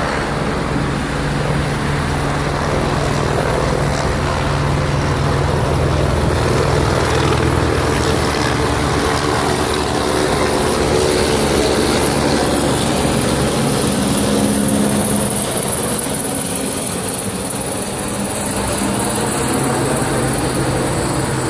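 Helicopter running close by: a steady high turbine whine over a low engine and rotor drone, the drone's pitch shifting about two-thirds of the way through.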